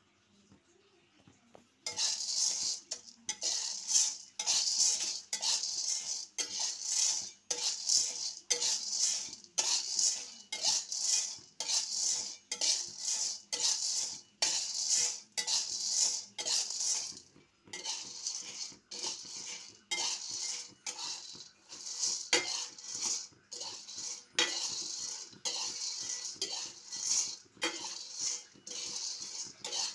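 Metal spoon stirring green coffee beans in a metal wok, scraping the pan and rattling the beans against it in strokes about twice a second, starting about two seconds in. This is the early stage of a hand roast, before the beans have coloured.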